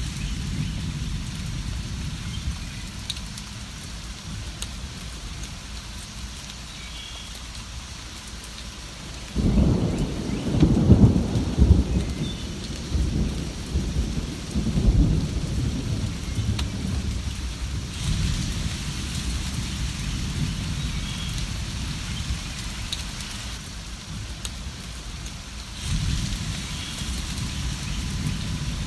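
Steady rain with rolling thunder. A low rumble swells about a third of the way in, peaks over the next couple of seconds and rumbles on, then swells again near the end.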